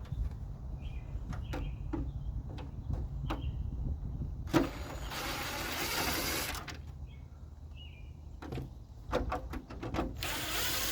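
Cordless power driver with a Torx T15 bit spinning in two bursts of about two seconds each, backing out the grille screws of a 1993 Chevy S-10. Scattered clicks of the tool against the screws come between the bursts.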